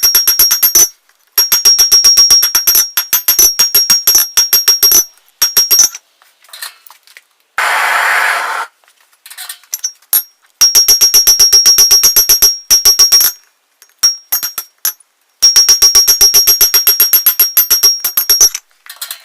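Hand hammer striking hot 5160 coil-spring steel on an anvil while tapering it, in rapid runs of blows lasting a few seconds each with pauses between, every blow ringing high and bright. A short rushing noise about eight seconds in.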